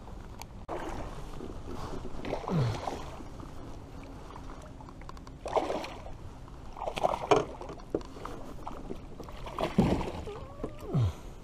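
Water splashing and slapping against a plastic fishing kayak's hull in several short bursts, two of them with a quick falling gurgle.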